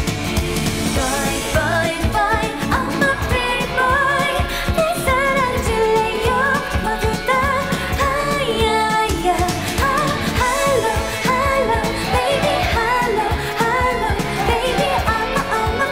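K-pop song: a singer's voice over a pop backing track with a steady beat.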